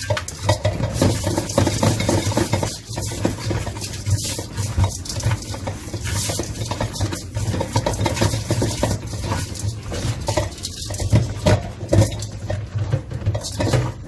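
Hands kneading and scrubbing makchang intestines with flour and coarse salt in a plastic colander, a continuous irregular squelch and rustle with the colander clattering against its bowl.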